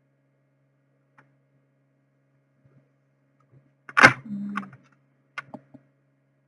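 Faint steady electrical hum, then a single sharp knock about four seconds in, with a brief low ring after it, followed by a few light clicks.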